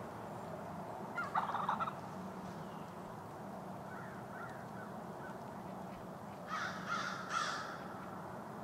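Wild turkey hen gobbling twice: once about a second in and again about six and a half seconds in, each gobble under a second long. A few faint short calls come in between.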